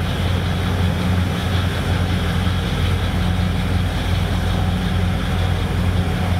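A patrol vessel's water-jet propulsion is running hard, its discharge rushing and churning the water at the stern over a steady low engine hum.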